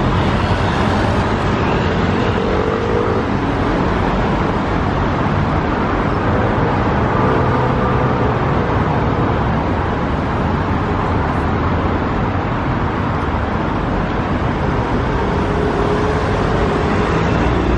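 Steady road traffic at a busy city junction: cars, a motorbike, a bus and a van passing, with engine notes rising and falling as they go by.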